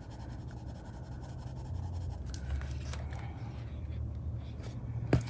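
Colored pencil scratching on coloring-book paper, pressed hard to burnish a green layer, over a steady low hum, with one sharp click near the end.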